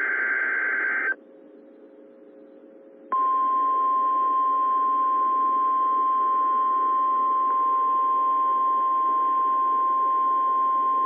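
EAS alert over weather radio. The tail of the digital SAME header data burst cuts off about a second in, followed by about two seconds of faint hiss and hum. Then the single steady 1050 Hz NOAA Weather Radio warning alarm tone sounds, the attention signal that a warning message follows.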